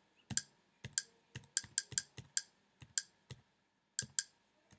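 A quick, uneven run of sharp computer input clicks, about three a second, each one stepping a menu selection down a list.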